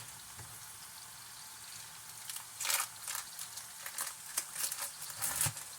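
Food frying in a pan with a faint, steady sizzle, joined from about three seconds in by a run of short scraping and rustling noises.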